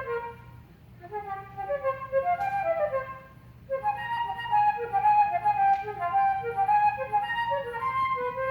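Solo flute playing quick, running phrases of notes, with two short breaks, one near the start and one a little before halfway.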